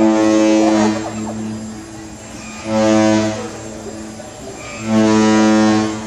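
Cruise ship's horn sounding three blasts: about a second long, then a shorter one, then another about a second long, each a deep steady tone with many overtones.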